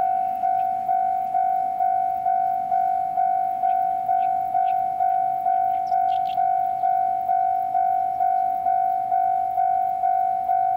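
Railway level-crossing alarm ringing steadily, about two strikes a second, each strike a single bell-like tone that fades before the next.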